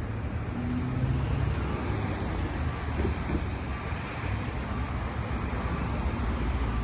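Steady low rumble of background traffic noise.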